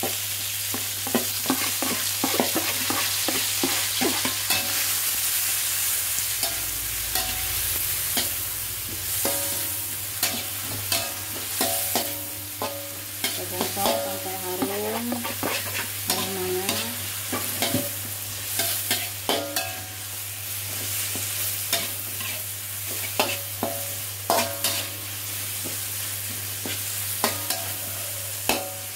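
Chopped shallots and spice paste sizzling in oil in a wok, with a spatula stirring and scraping the mix, making frequent short clacks against the pan.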